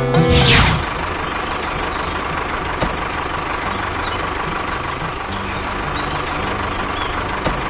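A short falling whoosh, then an engine running steadily and evenly.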